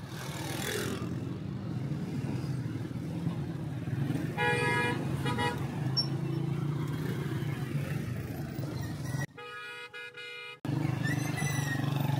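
Motorbike engine running steadily while riding through busy street traffic, with a vehicle horn honking twice in quick succession about four and a half seconds in. A little after nine seconds another horn sounds for over a second while the other noise briefly cuts out.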